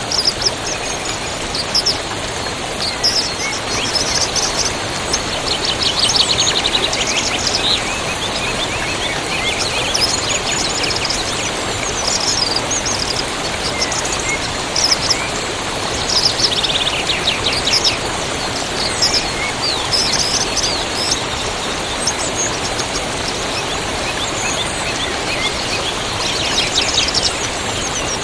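A river flowing steadily, with small birds chirping and singing over it throughout; a rapid trilled phrase stands out about five seconds in and again about sixteen seconds in.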